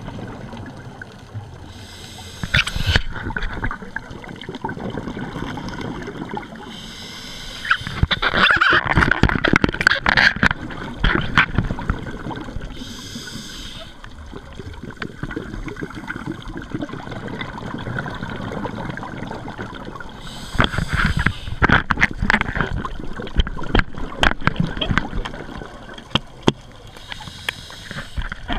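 Scuba diver breathing through a regulator underwater: five hissing inhalations, each followed by exhaled bubbles gurgling and crackling past the housing, loudest twice midway.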